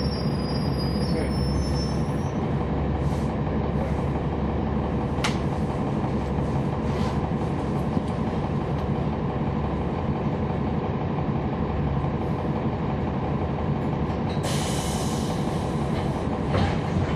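Interior sound at the back of a NABI 40-foot transit bus: its Cummins ISL9 diesel engine and driveline give a steady low rumble with level engine tones. A burst of air hiss comes about two seconds before the end.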